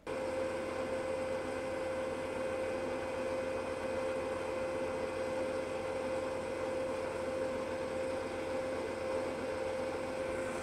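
Wood lathe running steadily at high speed, a constant motor whine with a hum beneath, spun up to friction-polish oil finish into a small turned wooden bell. The sound cuts off suddenly near the end.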